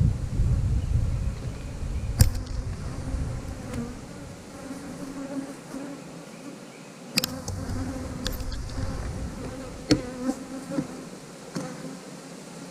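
Honeybees buzzing around an opened hive, a steady hum, with a few sharp clicks and knocks as wooden frames are worked loose from the honey box.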